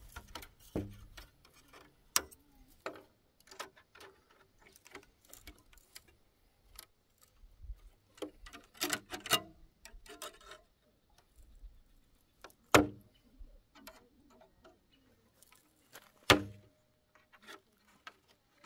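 Scattered, irregular clicks and knocks, with a quick cluster about halfway through and two sharper knocks later on.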